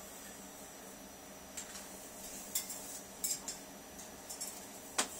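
Blue-crowned conure's claws and beak clinking on metal wire cage bars as it climbs: a few scattered light clicks, the sharpest near the end.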